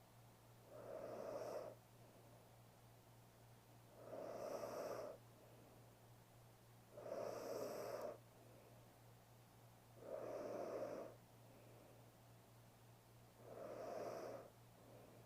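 A sleeping woman's snoring breaths: five of them, about three seconds apart, each lasting about a second.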